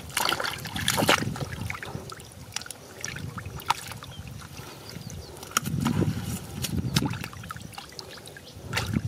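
Splashing and sloshing in shallow muddy water, with scattered sharp splashes and drips and a few heavier sloshes.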